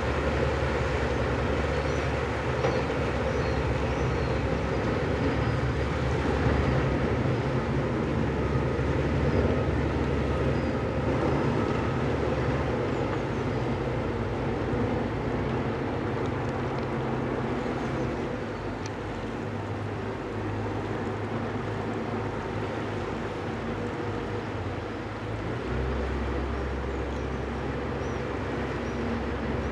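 Diesel engine of a small harbour tug running, heard from the bank as a steady low drone. Its deepest hum fades about halfway through and returns near the end as the tug manoeuvres.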